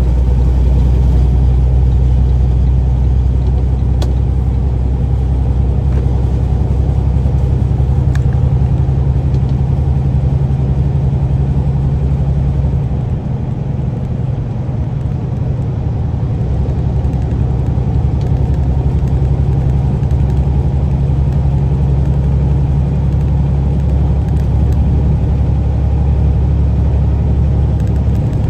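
Semi truck's diesel engine and road noise droning steadily inside the cab at freeway speed, a low rumble that dips briefly about halfway through before settling back.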